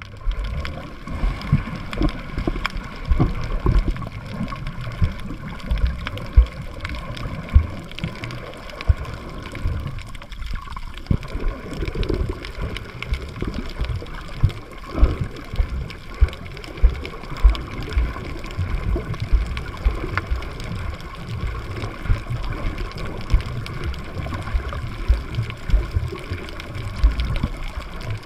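Muffled water sound picked up by a camera held underwater while snorkeling: water moving against the camera, with many irregular low thumps and scattered faint clicks.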